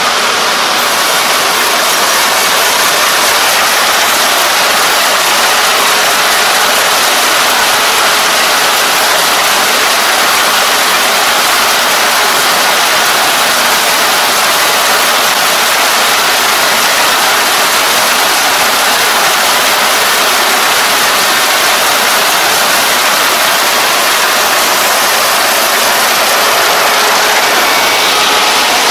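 Kubota ER470 combine harvester running steadily while reaping rice: a loud, unbroken mix of engine, threshing and cutting noise.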